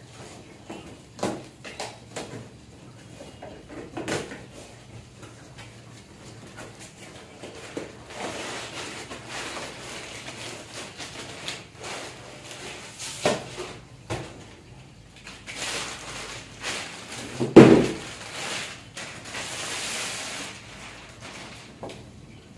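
A cardboard box being opened: a knife scraping through packing tape with a few light knocks, then cardboard flaps and plastic wrap rustling as a plastic-wrapped cricket bat is pulled out. A single loud thump comes about three-quarters of the way through.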